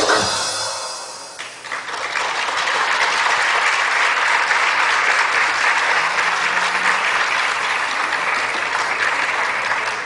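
Stage music breaks off in the first second and a half. Audience applause then rises and carries on steadily.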